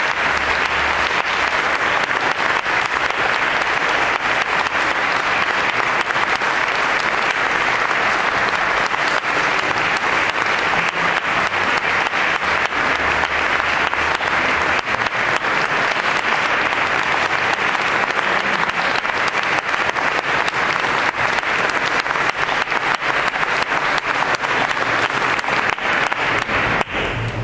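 Audience applauding, a dense, steady clapping that tails off right at the end.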